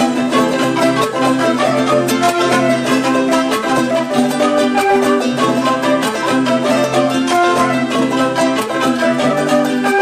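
Background music: a quick plucked-string tune of many short notes at a steady rhythm.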